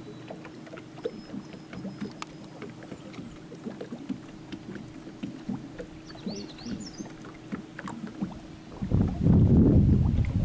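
Small irregular knocks and splashes of water lapping against a small boat's hull, over a faint steady hum. About nine seconds in, a loud low rumble of wind buffeting the microphone takes over.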